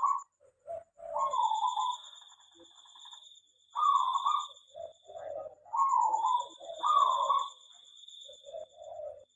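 Zebra doves (perkutut) cooing in an aviary: short bubbling phrases repeated every second or two, at times two birds overlapping. A thin, high, pulsing trill comes and goes behind them.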